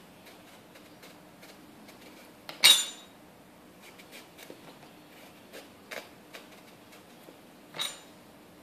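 Kitchen knife shaving the peel off a yellow squash in soft, irregular scraping strokes, with two sharp clinks: a loud one about two and a half seconds in and a softer one near the end.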